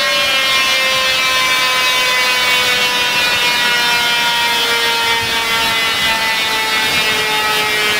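KTM X-Bow R's turbocharged 2.0 TFSI four-cylinder running loud and raspy on a rolling-road dyno, with a whine that falls slowly and steadily in pitch as the engine and rollers wind down.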